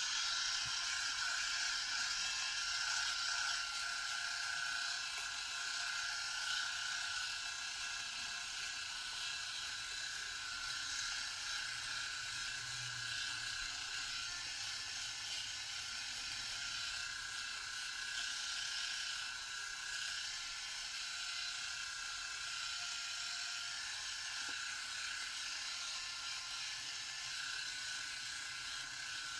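Sejoy cordless three-head rotary electric shaver running with a steady whir as it is moved over facial stubble, shaving dry without shaving cream.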